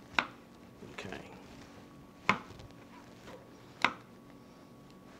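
Chef's knife chopping baby portobello mushrooms on a white plastic cutting board: three sharp, separate chops spaced a second and a half to two seconds apart.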